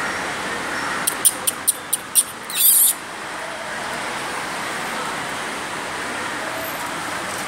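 Steady background road-traffic noise, with a quick run of about six sharp clicks followed by a short hissing burst, about one to three seconds in.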